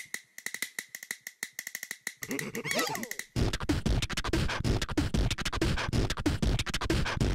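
Cartoon soundtrack: quick ticking clicks over a steady high tone, then a few gliding squeaky cartoon sounds around three seconds in. From about three and a half seconds a loud, dense electronic beat with deep bass starts up.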